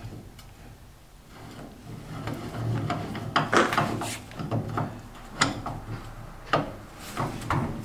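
Milling machine parts being handled on a workbench: irregular knocks and clicks of metal pieces, with some rubbing and scraping, a cluster of knocks about halfway through and a few more near the end.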